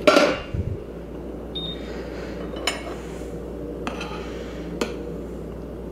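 A sharp ringing clink of a glass pan lid right at the start. Then a metal spoon clinks lightly against a stainless steel pan three or four times as poached meringues are turned over in the hot poaching liquid.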